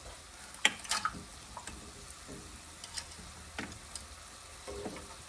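Diced Granny Smith apples sizzling gently in butter in a skillet, a faint steady hiss, with a few sharp clicks and taps scattered through it.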